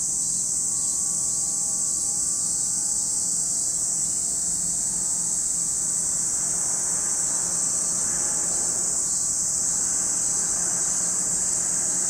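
A chorus of cicadas makes a steady, high-pitched, unbroken buzz. A faint low engine drone, likely a distant aircraft, fades out in the first few seconds.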